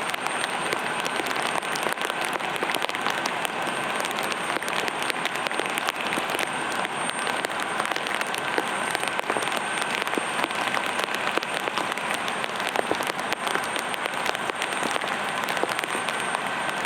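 Steady rain pattering on a hard surface close by, a dense, even hiss speckled with individual drop ticks. A faint steady high tone runs underneath.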